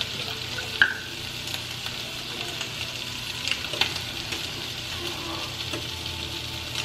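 Chopped rotisserie chicken frying in a nonstick pan: a steady sizzle, with a few light clicks scattered through it.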